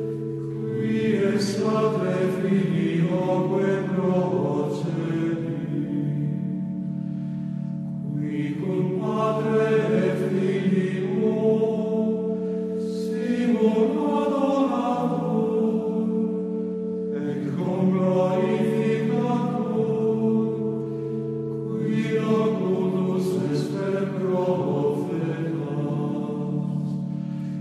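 A choir chanting in Latin, slow phrases of long-held notes with a short break every four to five seconds.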